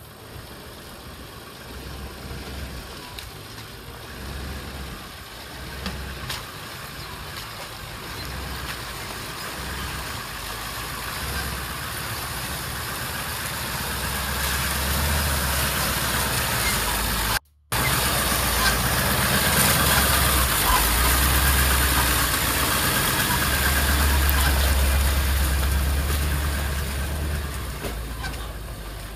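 Engine of a 4x4-converted Ford ambulance van running as the truck drives slowly through a shallow muddy crossing, growing louder as it comes close and easing off as it passes. The sound cuts out for an instant about two-thirds of the way through.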